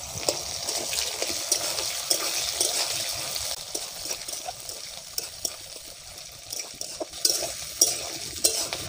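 Sliced onions sizzling as they fry in hot mustard oil in a metal karahi, while a metal spatula scrapes and clinks against the pan as they are stirred. The sizzle is strongest at first and eases off, with a few sharper clinks near the end.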